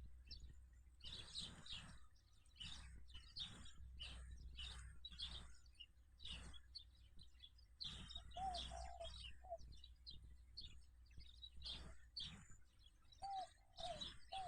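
Sparrows chirping in quick, overlapping bursts, faint. A lower warbled call cuts in twice, about halfway through and near the end.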